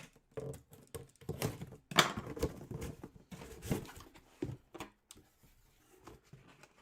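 Trading cards and their packaging being handled: irregular light taps and clicks with soft rustling, the sharpest taps about two seconds and nearly four seconds in.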